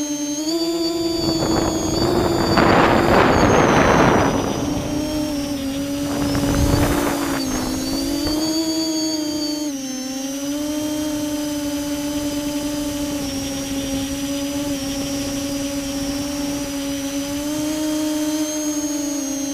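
Electric motors and propellers of a Spidex multirotor drone, heard from its onboard camera, humming steadily with the pitch shifting slightly as the throttle changes. Rushing air noise swells over the hum about two seconds in and again around seven seconds.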